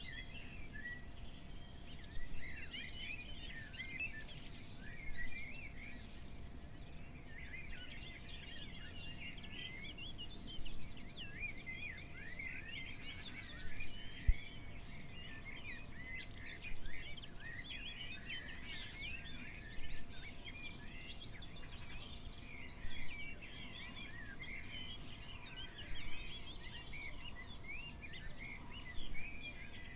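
Dawn chorus of many small songbirds chirping and twittering continuously over a low background rumble, with a louder sound recurring about every three seconds.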